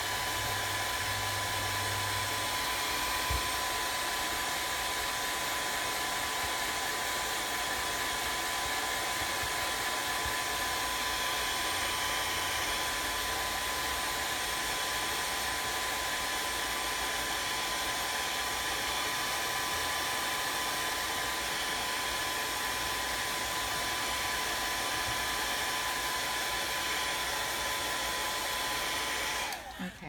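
Handheld electric hot-air blower running steadily to dry freshly applied Mod Podge: an even rush of air with a steady whine, which cuts off abruptly near the end.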